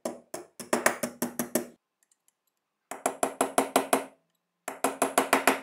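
Small hammer tapping a pin punch, driving a steel pin down into the frame of a Colt Model 1903 Pocket Hammer pistol: three runs of quick metallic taps, several a second, with short pauses between.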